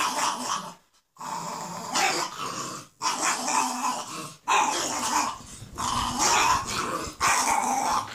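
A Staffordshire bull terrier and a French bulldog play-growling as they tug at a toy together, in bouts of a second or so with short breaks.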